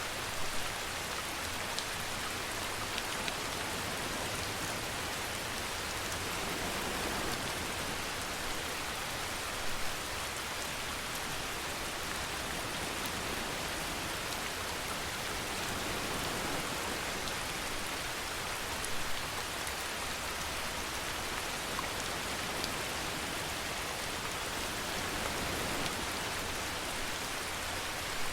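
Steady rain falling, an even hiss with a few louder drop spatters now and then.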